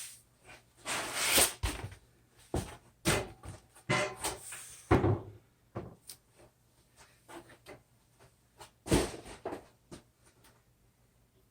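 Foam packing cushion being pulled off the base of a boxed 3D printer: irregular scraping and rubbing with sharp knocks. It is loudest about a second in, around five seconds in and again about nine seconds in, and the handling stops about ten seconds in.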